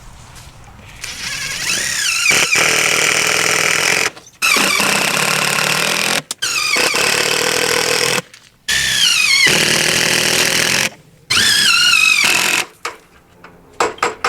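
Electric power drill running in five bursts of a second and a half to three seconds with brief pauses between, its motor whine rising as it spins up and falling as it stops. A few short clicks near the end.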